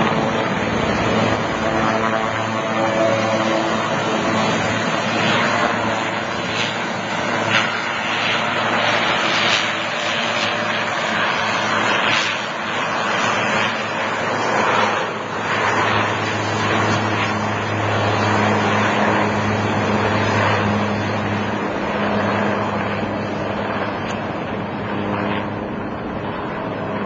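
Helicopter rotor and engine running steadily overhead: a low steady hum under a dense wash of rotor noise, growing a little fainter near the end as the helicopter flies away.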